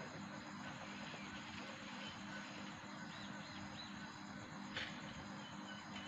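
Faint outdoor background with a steady low hum, a few faint bird chirps a little past halfway, and a single light knock near the end.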